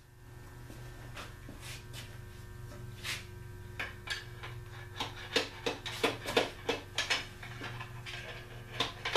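Sharp metallic clicks and knocks from a long-handled hand tool worked against the Packard engine's crankshaft end, irregular at first and coming faster and louder in the second half, over a steady low hum.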